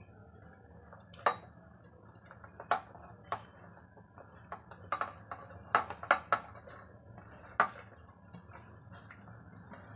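A steel plate clinking against an open stainless-steel pressure cooker as chopped vegetables are tipped off it into the pot. About ten sharp, irregular clinks, with a quick cluster of them past the middle.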